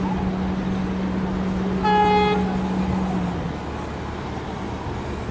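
Siemens electric multiple unit approaching, sounding one short horn toot about two seconds in. Under it runs a steady low hum that stops about three and a half seconds in.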